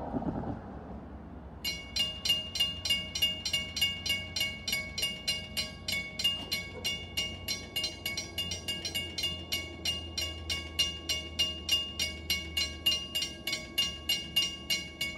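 Railroad grade-crossing bell ringing in rapid, evenly spaced strokes, about three a second, starting a second and a half in, while the crossing gates go back up after the train has cleared. The tail of the passing train rushes by and fades in the first half second.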